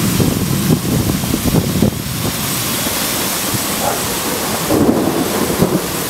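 Thunderstorm noise: a loud, steady rush of wind and rain with a low, fluctuating rumble.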